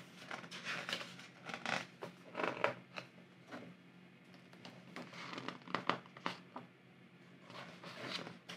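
Faint paper rustling as a page of a large hardcover art book is handled and turned by hand: a scattering of short swishes and crinkles, with a stretch of near quiet in the middle.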